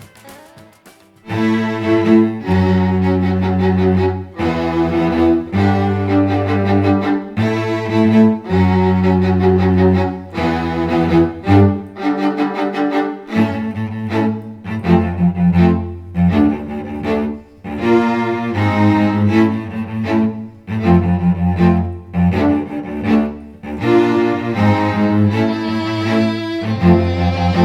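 Instrumental soundtrack music with bowed strings in a low register, cello-like, starting about a second in and moving through a run of held notes.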